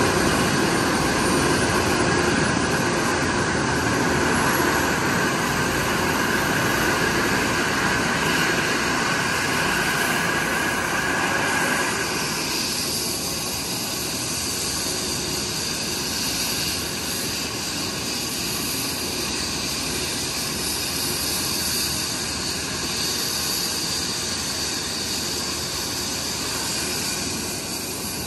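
Airbus Helicopters EC135 police helicopter's twin turboshaft engines running on the ground: a steady turbine whine over a dense rush of noise. About twelve seconds in, the pitched whine drops away and the sound becomes slightly quieter and hissier.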